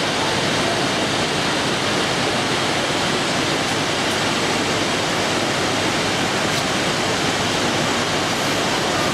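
Steady rush of fast-flowing water, an even hiss-and-roar with no breaks.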